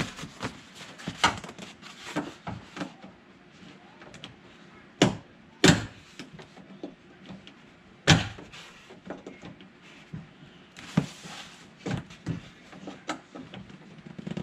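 Clicks, taps and knocks of a hook tool and plastic clips being worked inside a Chevy Silverado door to free the door handle, with louder knocks about five, six and eight seconds in.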